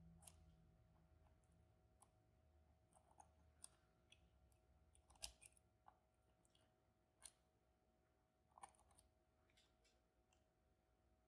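Faint, scattered metallic clicks of lock picks working the pins inside a Banham m2002 lock, about eight ticks spread irregularly, the loudest about five seconds in. A faint steady hum underneath.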